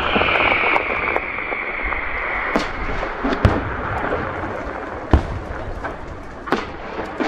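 Aerial firework shells bursting in a series of sharp bangs, about four loud ones a second or more apart, with smaller pops between them. A steady hiss runs underneath, strongest in the first two seconds.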